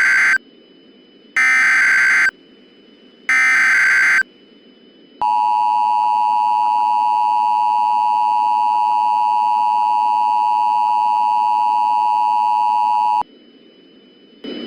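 Emergency Alert System SAME header: three bursts of rapid digital warbling, each about a second long, with the first already under way. Then comes the EAS two-tone attention signal, held steadily for about eight seconds before it cuts off abruptly.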